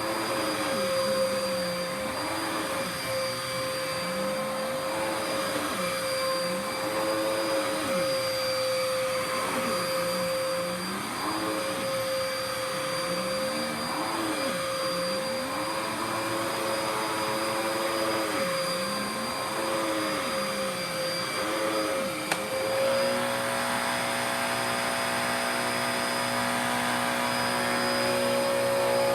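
Dirt Devil PowerMax Pet upright vacuum cleaner running, with a steady motor whine and a lower tone that rises and falls every couple of seconds as it is worked back and forth. About 22 seconds in the rising and falling stops and it runs at a steady pitch.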